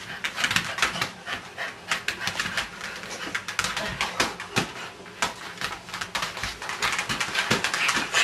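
Cocker spaniel panting, mixed with many quick, scratchy clicks.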